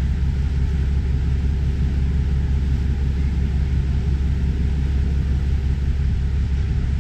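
Steady low rumble of the JR Miyajima ferry's engines underway, over an even hiss.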